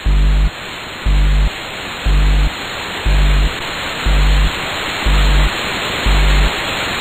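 Music made from Windows system sound effects: a short low tone repeats about once a second like a beat over a steady hiss that slowly grows louder.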